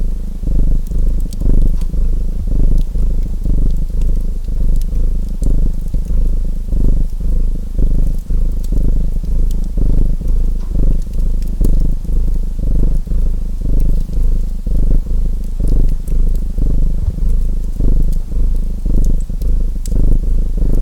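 Domestic cat purring close up, a low rumble that swells and eases over and over. Faint wood-fire crackles tick over it now and then.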